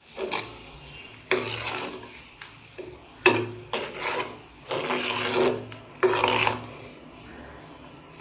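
Flat steel spatula scraping against the inside of an unglazed clay pot as okra and salt are stirred into boiling curry: about six rough scraping strokes, the last about six and a half seconds in.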